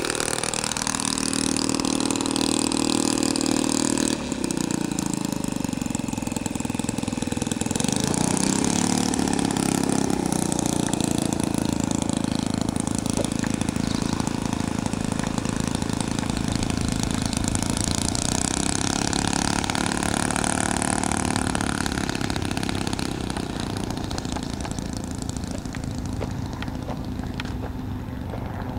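O.S. 1.20 four-stroke model engine in a Top Flite P-51 Mustang RC plane running steadily, its pitch rising about eight seconds in as it is throttled up to taxi. It grows quieter near the end as the plane moves off down the runway on its take-off roll.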